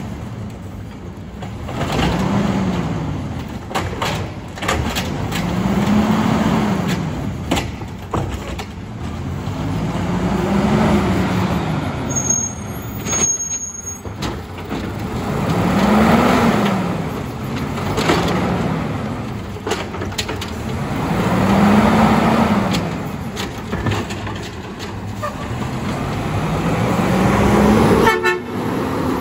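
Autocar automated side-loading garbage truck's engine revving up and falling back about seven times, a few seconds apart, to drive the hydraulic arm as it lifts and dumps carts, with clanks of the arm and carts in between.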